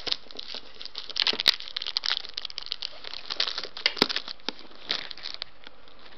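Clear plastic film wrapping a cardboard DVD sleeve being pulled and handled, crinkling and crackling in irregular bursts, with two sharp clicks about a second and a half and four seconds in. The wrapping is stubborn and will not come off.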